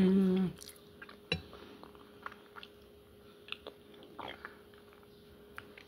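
A person chewing and gnawing stewed chicken feet, with small scattered wet clicks and smacks of the mouth. It opens with a short hummed "mmm" lasting just under a second.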